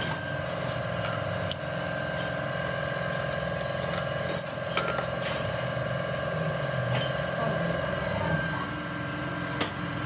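Light clicks and clinks of car brake pads' metal backing plates being handled, over a steady machine hum whose tone stops near the end.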